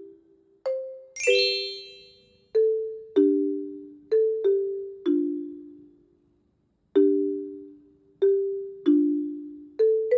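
Gentle background music of bell-like struck notes, often two at once, each ringing and fading before the next, with a brief high shimmering chime about a second in.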